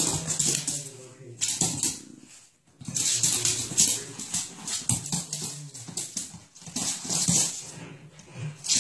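Two dogs play-fighting, making repeated low play growls and whines with short breaks between them.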